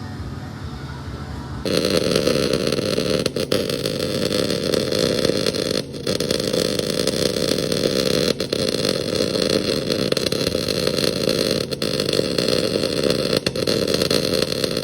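MIG welding arc crackling and buzzing steadily as a weave bead is laid, starting suddenly about two seconds in after a quieter hum, with a few brief dips in the arc.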